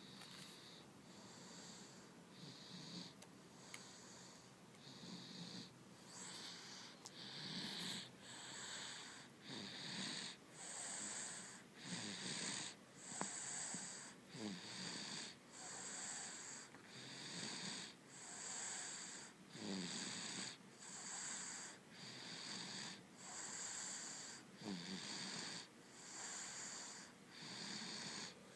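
A sleeping baby snoring softly, with a wheezy, hissy breath a little more than once a second. The snores are faint for the first few seconds, then grow more distinct and steadily rhythmic.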